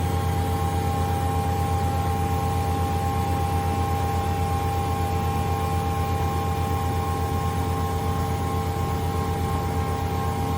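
Marvel 81A/10 vertical automatic bandsaw running: a steady low motor hum with a few steady whining tones above it.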